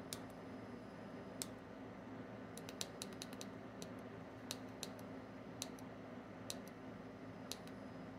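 Push buttons on an OnStep handheld controller clicking under a thumb while scrolling a star list. There are about seventeen irregular clicks, with a quick run of them about three seconds in, over a faint steady hum.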